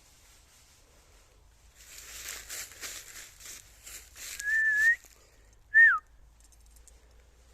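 Crunching rustle of footsteps through dry autumn leaves, about three steps a second, then two whistles to call a dog: a held, slightly wavering note, and a moment later a short, louder whistle that falls in pitch.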